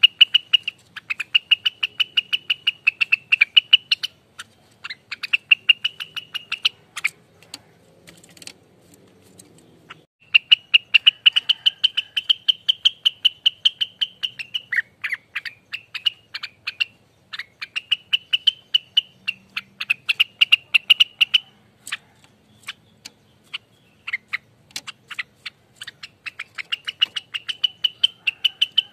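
Rengganis songbird giving its fast rattling 'ropelan' song: runs of rapid, evenly repeated high chips, about ten a second, each run lasting a few seconds, with short breaks and a longer pause about a third of the way through.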